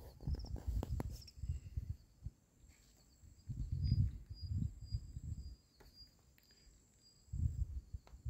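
Wind gusting on the phone's microphone in irregular low rumbling bursts with quiet gaps between. Behind it run a faint steady high insect drone and short high chirps repeating about twice a second.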